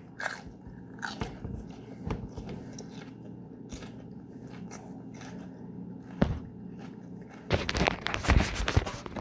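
Mouth chewing a large, juicy raw Carolina Reaper x Scotch Bonnet pepper pod: irregular wet smacks and crunches, with a steady low hum behind. From about three-quarters of the way in, louder rubbing and knocking as a hand handles the camera.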